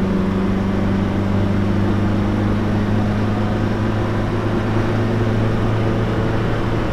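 Renault Trafic van's 2165cc four-cylinder petrol engine running steadily under load at road speed, a steady drone heard from inside the cab along with road and wind noise.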